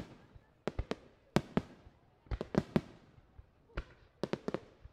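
Aerial fireworks bursting in quick, irregular succession: more than a dozen sharp bangs, several a second at times, each with a short echoing tail.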